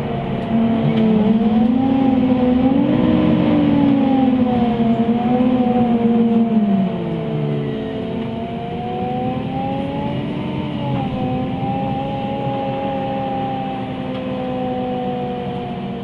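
MAN Lion's City CNG city bus's engine and drivetrain heard from inside the passenger cabin while the bus is moving: several whining tones rise and fall in pitch over a steady rumble. The sound gets louder about half a second in and eases back after about seven seconds.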